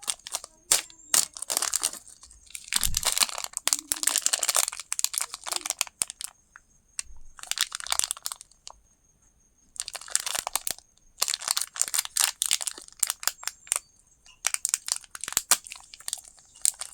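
Candy wrappers crinkling and tearing open in repeated bursts of crackling with sharp clicks, broken by short pauses.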